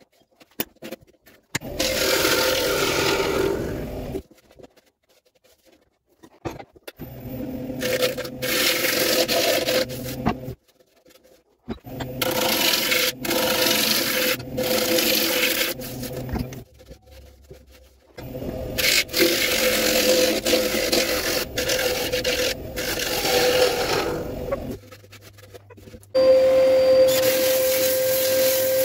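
A gouge cutting into a green ash bowl spinning on a wood lathe: four scraping cuts of a few seconds each, with short pauses between them and the lathe humming under them. Near the end a steadier whirring sound with a strong hum takes over as a cordless drill's sanding disc power-sands the spinning bowl.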